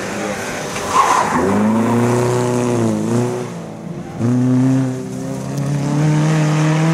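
Rally car engine revving hard under acceleration, its pitch climbing, dipping around three seconds in and breaking off briefly just after four seconds at gear changes, then pulling high and steady. A brief loud rush of noise comes about a second in.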